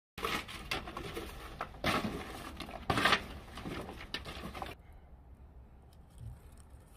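Cardboard being pulled apart and tossed onto a pile, a run of rustling scrapes with two loud bursts about two and three seconds in, dying down after about four and a half seconds.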